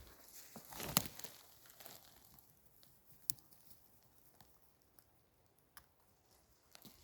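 Rustling and crackling of forest-floor litter, dry leaves and twigs, loudest about a second in, with a sharp click a little past three seconds and a few fainter clicks near the end.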